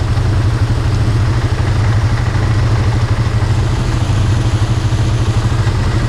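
ATV engine idling steadily.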